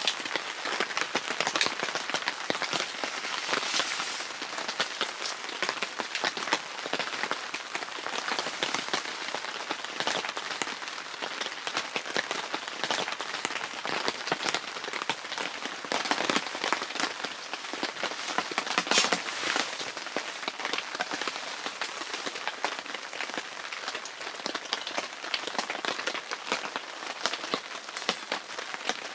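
Steady rain pattering, a dense fine patter without a break.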